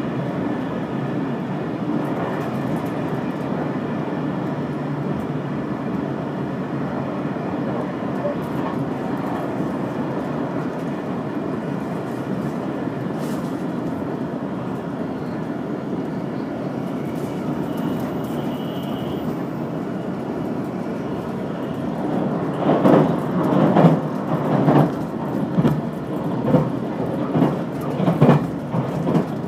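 Running noise of a limited express train heard from inside the carriage: a steady low rumble. Over the last several seconds the wheels begin clacking over rail joints about once a second.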